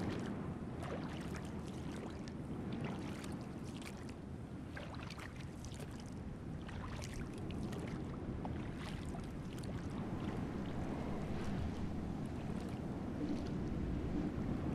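Small boat being rowed through the water: irregular light splashes and swishes of the oars over a steady low background noise.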